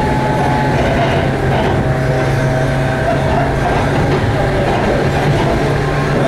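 JR 119 series electric train running at speed, heard from inside the car: a steady rumble of wheels on rail under a low motor hum, with a faint high whine that comes and goes.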